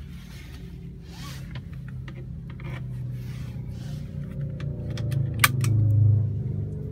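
Car engine running at low speed, heard from inside the cabin, swelling briefly near the end. Light clicks and rattles come over it, with one sharp click about five and a half seconds in.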